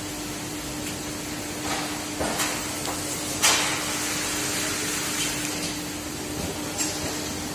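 Steady ventilation hum with one constant low tone, and a few short papery swishes of hand-held cardboard signs being shuffled and swapped, the loudest about three and a half seconds in.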